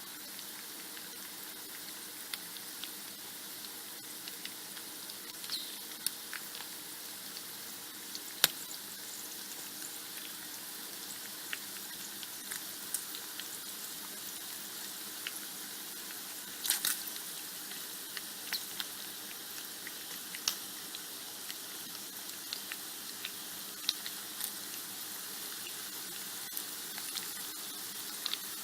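Bacon frying in a pan: a steady high sizzle with scattered sharp crackles and pops, a loud pop about a third of the way in and a quick cluster of pops near the middle.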